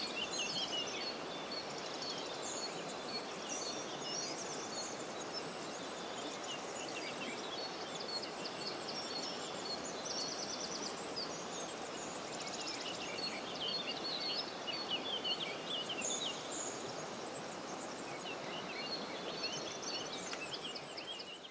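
River ambience: a steady rush of flowing water with several small birds chirping and singing over it, fading out at the very end.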